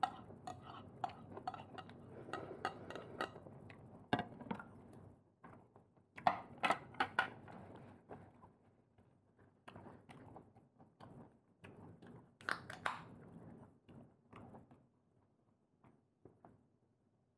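Dishes and cutlery clinking during a meal of clams and prawns: a run of short clicks and taps that thins out and stops near the end.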